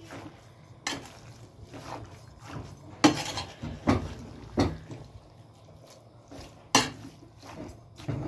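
A spoon knocking and scraping against an aluminium pressure cooker while raw tripe, onions and spices are stirred together inside it: about five sharp clanks with softer scrapes and wet shuffling between.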